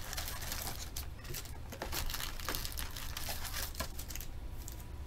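A cardboard trading-card hobby box (2021 Panini Contenders Football) being opened by hand: a run of short rustles, crinkles and light taps as the lid and flaps are handled and the foil-wrapped packs inside are reached for.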